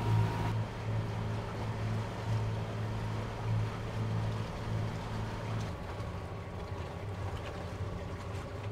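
Sailing catamaran's inboard engine running at a steady low hum while the boat motors along, with water and wind noise around it.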